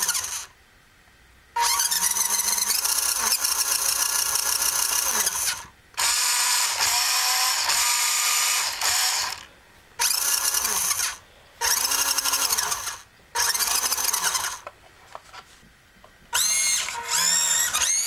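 Small electric motor and gear drive of a toy RC truck whining as its wheels spin freely with the truck upside down. It runs in about six bursts of one to four seconds, each rising in pitch as it spins up and falling as it stops.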